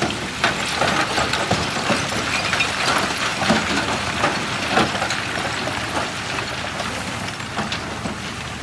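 Heavy earthmoving machinery running, with gravel and stones clattering and knocking as they are pushed or dumped. The knocks are thickest in the first five seconds or so and then thin out.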